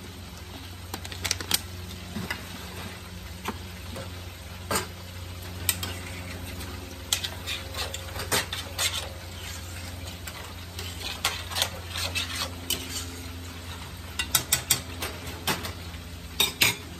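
Food sizzling in a frying pan while a utensil stirs and scrapes, clinking and knocking against the pan and other cookware many times, over a steady low hum.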